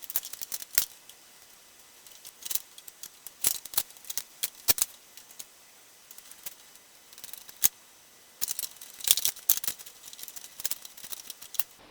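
Irregular sharp metallic clicks and clinks of hand tools and small hardware as a voltage regulator is mounted, in clusters shortly after the start and again through the last few seconds.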